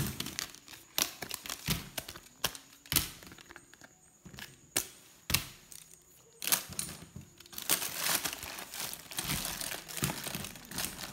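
Hands handling plastic pens and cat-shaped hand fans over a cardboard box: irregular sharp clicks and taps as the items knock together, with crinkling of the plastic bag lining the box, busiest in the second half.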